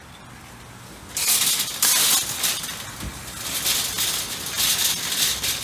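Metal wire shopping trolley rattling and clattering as it is pushed over wet tarmac, its wheels rolling; the rattle starts about a second in and runs unevenly, louder and softer.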